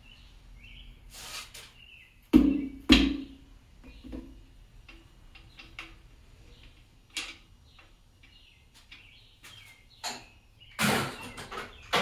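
Hammer striking metal twice, about half a second apart, among lighter clinks and rattles of hand tools on engine parts, with a heavier clatter near the end.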